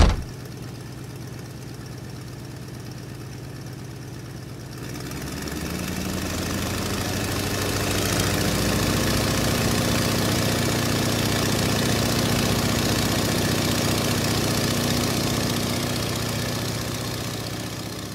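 Piston engines of a twin-engine light aircraft running, growing louder about five seconds in as the plane takes off, then fading near the end. A short thump right at the start.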